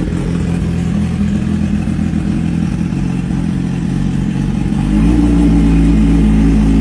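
BMW S1000RR's inline-four engine idling cold, not yet warmed up, through an SC Project full-system exhaust. It runs steadily and steps up louder about five seconds in, then holds.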